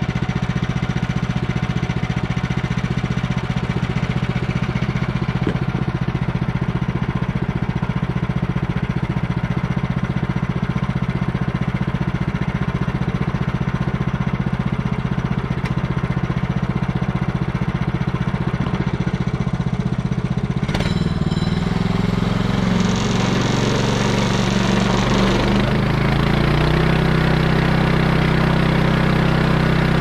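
Woodland Mills HM130 bandsaw mill's gasoline engine running steadily. About two-thirds of the way through there is a sharp click, and the engine note then changes and grows a little louder.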